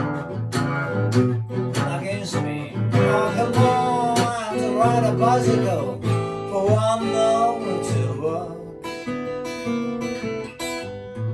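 Amrita Custom F-Model flattop acoustic guitar fingerpicking a blues passage, with plucked bass and treble notes. A higher melody line bends and wavers in pitch through the middle.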